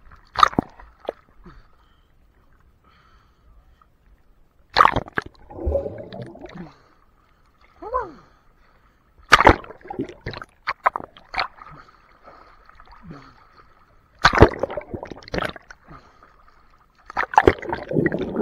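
Water splashing and gurgling around a waterproof action camera as it dips in and out of the water, with about five sharp slaps of water against the camera and muffled bubbling between them.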